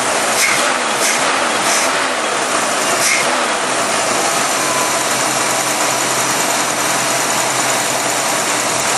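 Oldsmobile 307 V8 engine idling steadily with the hood open, heard close to the carburetor, shortly after a cold start. A few light clicks come in the first three seconds.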